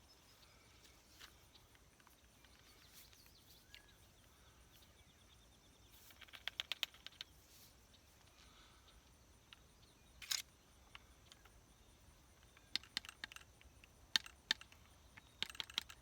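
Faint clicks and taps from reloading a flintlock pistol, with a quick run of clicks about six seconds in, a single louder tap near ten seconds, and scattered clicks through the last few seconds as the ramrod seats the ball in a barrel that has become tight.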